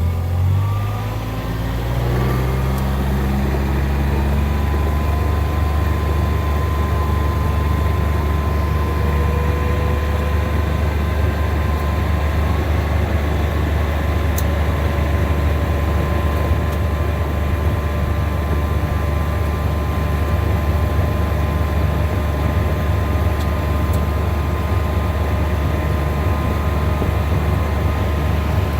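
A motor vehicle driving. The engine picks up speed over the first couple of seconds, then settles into a steady low drone, with a faint whine that slowly rises in pitch.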